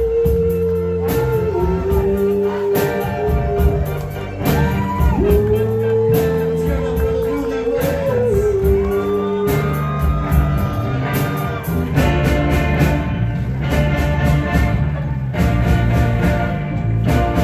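Live band playing a slow rock ballad: long, held melody notes with small slides, over guitar, bass and drums.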